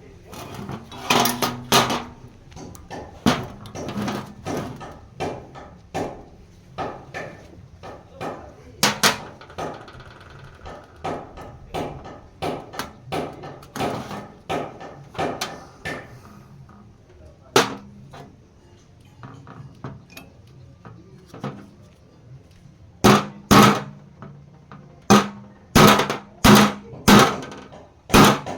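Repeated hammer blows on metal, about one or two a second, pausing briefly in the middle and ending in a loud, quick run of strikes.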